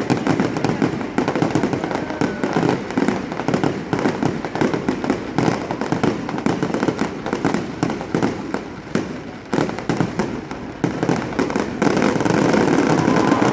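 Fireworks going off in a dense, rapid crackle of many overlapping bangs and pops. Near the end the crackle gives way to a louder, steadier rush of noise.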